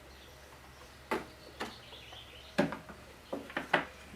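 A handful of short clicks and light knocks, irregularly spaced, from a tool and small parts being handled while part of a lawn mower engine is taken off.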